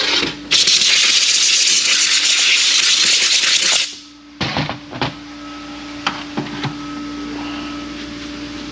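Compressed-air blow gun hissing: a brief blast, then one long blast of about three and a half seconds, blowing debris out of a Ford AOD transmission oil pump. A few light clicks and knocks follow over a faint steady hum.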